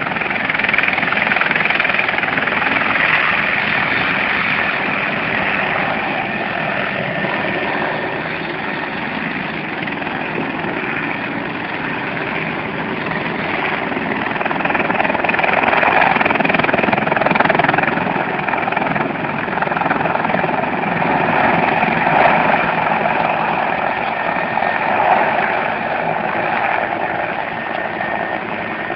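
Helicopter turbine engine and rotor running loud and steady as the repaired helicopter takes off and flies low overhead. The noise swells and eases a little as it passes.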